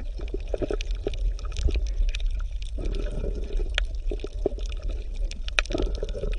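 Bubbling, gurgling water: irregular small pops and ticks over a steady low rumble.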